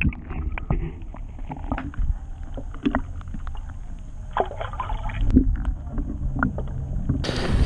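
On-board noise of a fishing boat: a steady low rumble with scattered knocks and clicks, and a faint steady high tone throughout.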